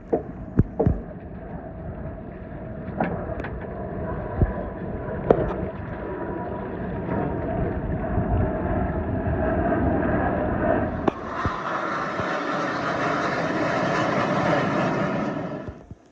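Blue Angels jets flying overhead: a rushing jet roar builds over several seconds, is loudest in the last third, and stops abruptly near the end. A few sharp knocks stand out in the first half.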